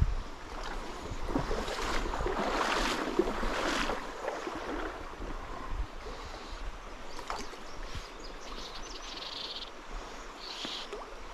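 Water sloshing and swishing as someone wades through a shallow river. It swells for a few seconds, then settles into a quieter, steady wash.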